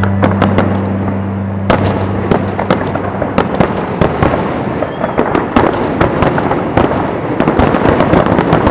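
Aerial fireworks going off: a dense, irregular run of sharp bangs and crackling from bursting shells. The last low notes of a song die away about two seconds in.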